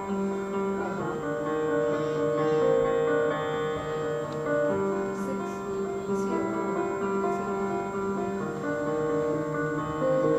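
Slow instrumental soundtrack music with long held chords that shift every second or two, played through a screening room's loudspeakers.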